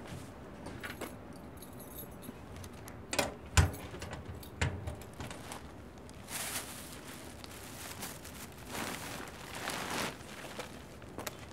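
A few sharp knocks and clatters of objects being handled, then plastic bags rustling in bursts as they are picked up and moved.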